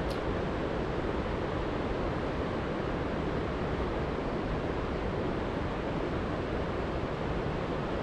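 Linville River rushing steadily, an even, unbroken sound of moving water.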